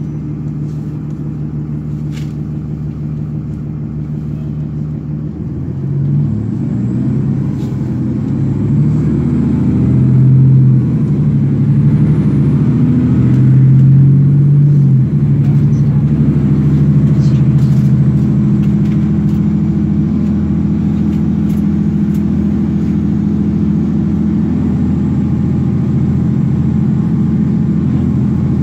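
Cummins ISL diesel engine of a 2009 Nova Bus LFS heard from inside the cabin: a steady low hum that builds in loudness and pitch from about six seconds in as the bus pulls ahead, drops suddenly around halfway through as the automatic transmission shifts up, then runs steady at cruising speed.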